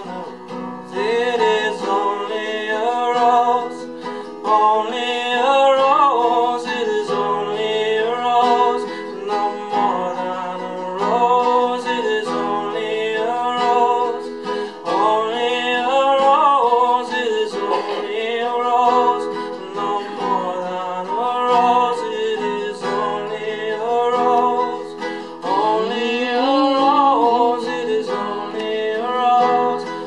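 A man singing a folk song, accompanying himself on a nylon-string classical guitar, the voice coming in phrases with short breaks between them.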